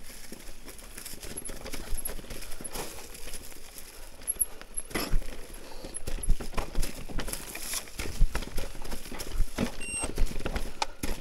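Canyon electric mountain bike rattling and knocking irregularly as it rolls over leaf-litter and rocks on singletrack, tyres crunching through dry leaves. A brief high tone sounds about ten seconds in.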